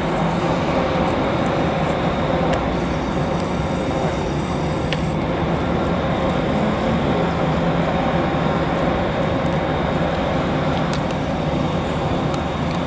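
Steady city street traffic noise with a continuous low hum.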